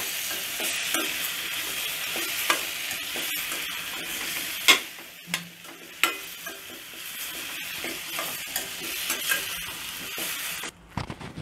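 Tomatoes, shallots and garlic sautéing in oil in a steel pan over low heat, sizzling steadily while a steel spoon stirs them, with the spoon knocking and scraping against the pan now and then. The sizzle drops away shortly before the end.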